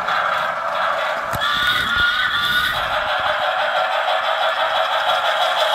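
Toy electric train running on plastic track: a steady whirring and rattling of its small motor and wheels.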